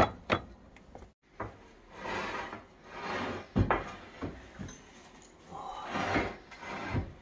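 A series of sharp knocks and clacks, with three short sliding, scraping sounds between them, like drawers or cupboard parts being handled.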